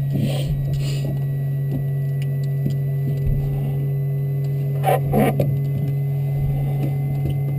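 Steady low hum inside a Robinson R22 helicopter cockpit, with a brief burst of noise about five seconds in.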